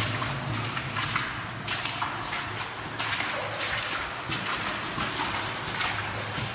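Footsteps wading and splashing through shallow water in a concrete culvert tunnel, an uneven stride of sloshes about every half second, over a steady low hum.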